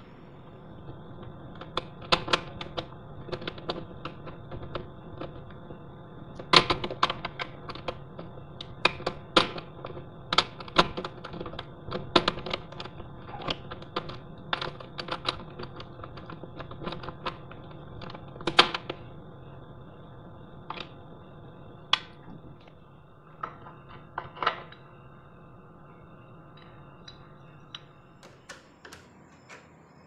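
Screwdriver working inside a euro cylinder lock: irregular sharp metallic clicks and clacks, thick and fast at first and thinning out after about two-thirds of the way through, as the cylinder is worked loose from the door.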